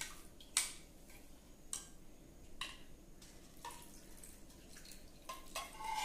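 Watery kokum mixture poured from a steel pot through a plastic strainer into a bowl, dripping and trickling, while a steel spoon clicks and scrapes against the pot about once a second.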